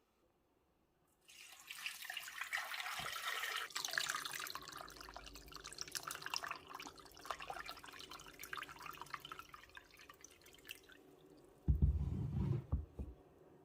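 Water running from a tap into a sink, splashing, and tailing off after several seconds; near the end a few low knocks.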